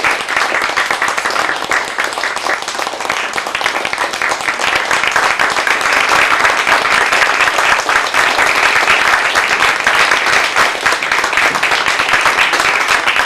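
Audience applauding: many hands clapping in a dense, steady patter that grows a little stronger about halfway through.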